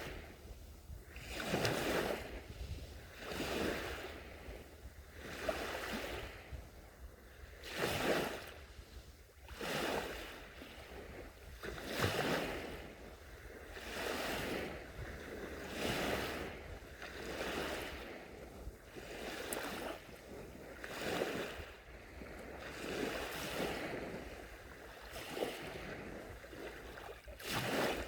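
Gentle sea waves breaking and washing onto the shore, one surge of wash about every two seconds, over a steady low rumble.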